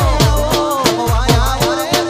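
Gujarati regadi devotional folk song music: a steady beat of electronic drum hits, about four a second, each with a low pitch sliding down, under a wavering melody line.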